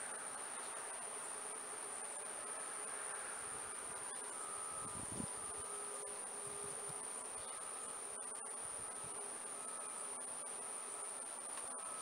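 Insect trilling: one steady, unbroken high-pitched tone. Faint short tones repeat lower down about once a second, and there is one soft thump about five seconds in.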